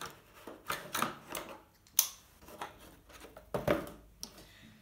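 An LED tube with its cable and power unit being handled and lifted out of a cardboard box: scattered rustles and light knocks, with one sharp click about two seconds in and a few more knocks a little later.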